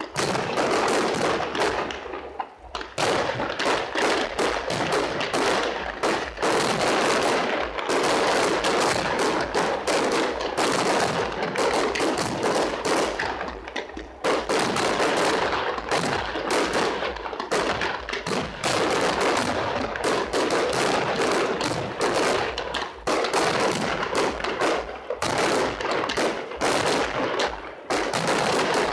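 Fireworks display: a dense, continuous barrage of rapid bangs and crackling from bursting aerial shells. There are short lulls about two and a half seconds in and around the halfway point.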